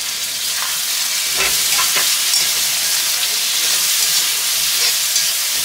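Chopped tomatoes and green chilli sizzling steadily in hot mustard oil with fried onions in a kadhai over a high gas flame, with a couple of light knocks about a second and a half in.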